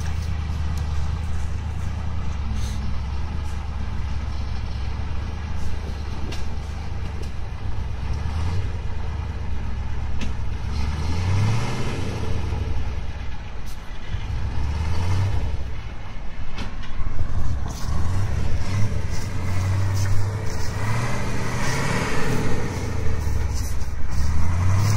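KAMAZ truck's diesel engine running hard under load as the truck churns through deep mud. It is revved up several times in the second half, the note rising and falling with each push.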